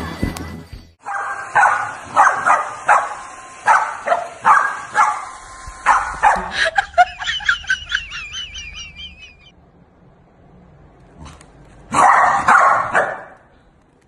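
Corgi barking repeatedly, about two barks a second, then a run of short high-pitched wavering cries. After a brief pause there is another burst of barking near the end.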